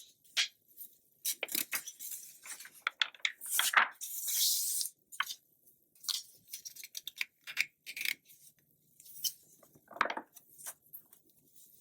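Glossy magazine pages being turned and handled by hand: irregular crinkles and crackles of the paper with brief swishes, one longer swish about four seconds in and a louder crackle about ten seconds in.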